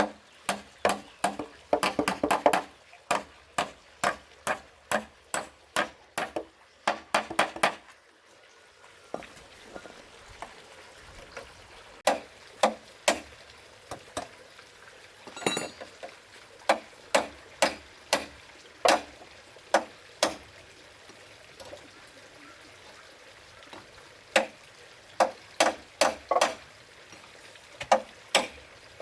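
Repeated sharp knocks of a hand tool striking timber, as in hammering or chopping while framing. The knocks come fast and even, about three a second, for the first eight seconds or so, then as single strikes spaced a second or more apart.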